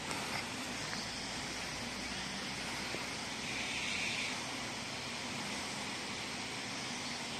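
Steady outdoor background noise, an even hiss with no distinct event standing out.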